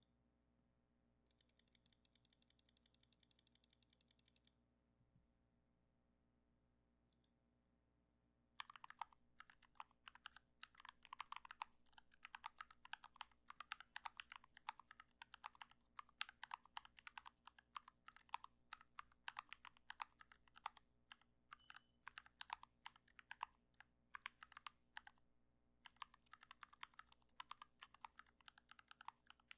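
Typing on a YMDK Wings mechanical keyboard with Gateron Black Ink V2 linear switches and PBT keycaps, its case dampened with butyl and a tape mod. Typing starts about nine seconds in as a dense run of key strikes, with a short pause near the end. Earlier, about a second in, there is a fast, even ticking lasting about three seconds.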